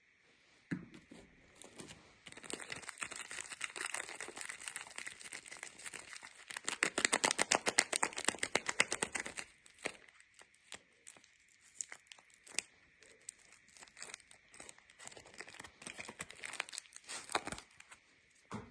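Soap packaging being unwrapped: wrapping crinkling and tearing, loudest as a fast run of crackles about seven seconds in, then scattered crinkles and light clicks as the wrapping is handled.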